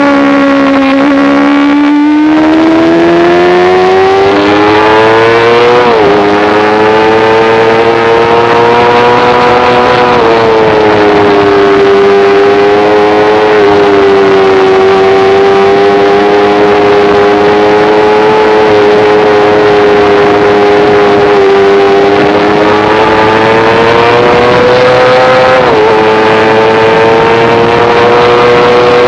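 Sport motorcycle engine running at high revs under load on a race track. It climbs in pitch and drops suddenly on upshifts, once clearly about six seconds in and again late on, holding a steady high rev in between.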